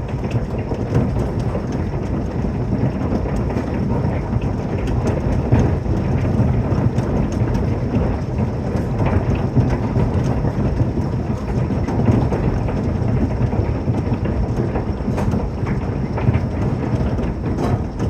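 Hail, about golf-ball size, hitting hard on the roof above a bedroom, heard from inside the room. It makes a steady, dense din of many sharp knocks over a low rumble.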